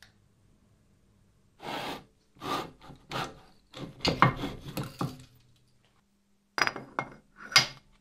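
Heavy steel machine-shop parts being slid and set down on a milling machine's steel table: a run of scrapes and knocks, then two sharp metallic clinks with a brief ring near the end.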